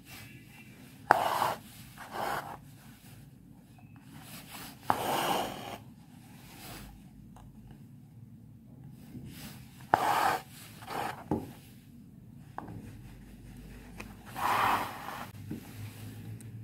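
Embroidery thread being pulled through fabric stretched in a hoop: about six short rasping swishes a few seconds apart, one for each stitch.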